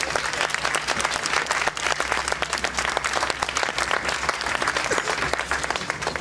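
An audience applauding, with dense, steady clapping.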